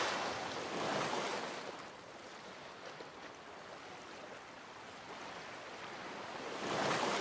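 Ocean surf washing in, an even hiss of water that swells about a second in and again near the end.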